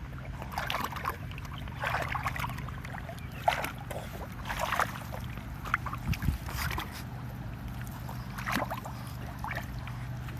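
Shallow water in a plastic kiddie pool splashing and sloshing in irregular bursts as a dog wades through it and noses at floating toys, over a steady low hum.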